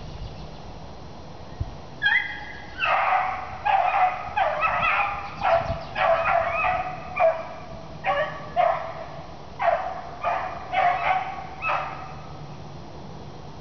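A beagle baying on a cottontail rabbit's trail: a quick string of short, high barks in clusters, starting about two seconds in and stopping near the end.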